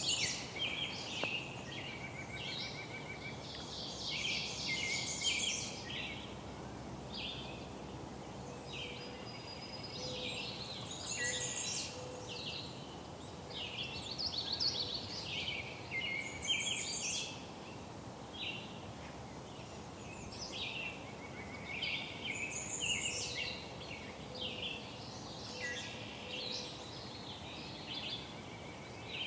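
Songbirds singing, with complex high-pitched phrases every few seconds over a steady low background hiss.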